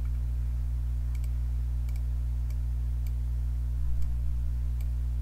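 Steady low mains hum, with faint scattered clicks of a computer mouse, the loudest a quick pair about four seconds in.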